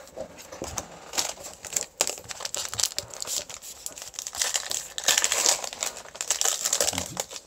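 Foil booster-pack wrapper being crinkled and torn open, an irregular papery crackle that comes in louder spells about a second in, around five seconds in and again near the end.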